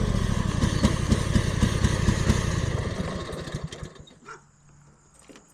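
A small vehicle's engine running at idle, then switched off: it shudders and dies away about three to four seconds in. A few faint clicks follow.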